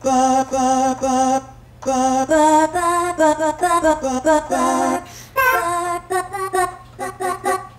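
A sampled clip of a woman's singing voice, retriggered from a MIDI keyboard over and over at different pitches: a run of short sung notes that start and cut off abruptly, getting shorter and choppier in the second half.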